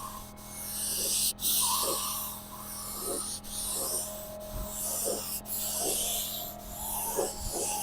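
Paint spray gun hissing as it sprays clear coat, in repeated surges with brief breaks between them.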